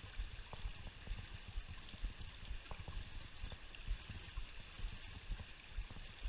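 Flowing river water, a steady rushing, with irregular low thumps on the microphone.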